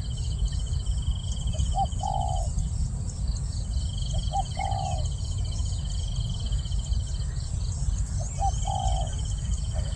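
Spotted dove cooing three times, each phrase two short notes followed by a longer one, with a steady high insect trill behind it.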